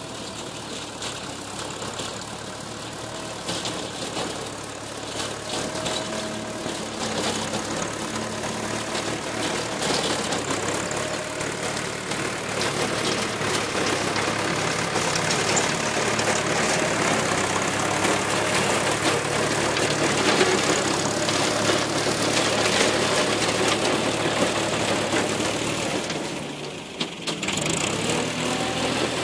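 Massey Ferguson 275 tractor's four-cylinder diesel running steadily under load, pulling a rotary tiller through the soil. It grows louder as the tractor draws near and passes, and dips briefly near the end.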